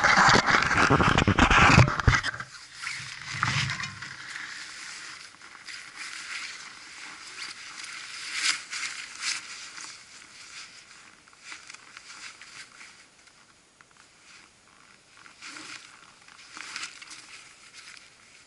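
Loud rubbing and knocking of a hand on the action camera for about two seconds, then fainter scattered crunches and rustles of a person shifting on packed snow and shouldering a backpack, growing quieter toward the end.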